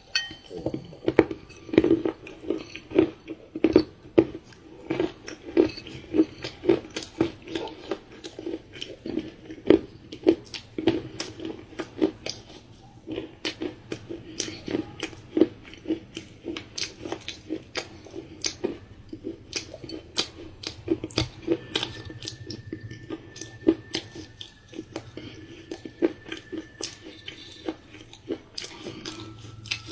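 Close-miked chewing of dark chocolate pie: a steady rhythm of wet, sticky chews and bites, about two a second.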